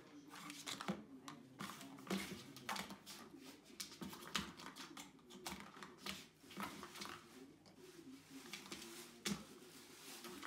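Irregular plastic clicks and knocks as a kitten bats at the ball inside a plastic circular track toy, a few taps a second with pauses between.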